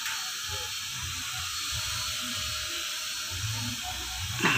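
Steady hiss with a faint, uneven low rumble underneath, and a short sharp sound near the end.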